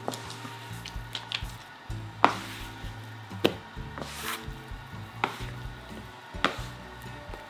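Sticky yeast dough being kneaded by hand and scraped up off a countertop with a plastic bench scraper: soft squishing and rubbing with four sharp taps and scrapes spread through. Soft background music plays underneath.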